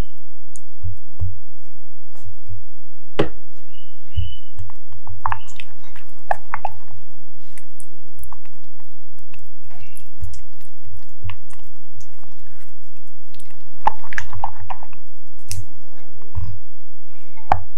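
Wooden spoon stirring a thick chocolate ganache in a glass bowl as butter is worked in. It makes sticky, squelching sounds with scattered light taps and clicks of the spoon against the glass.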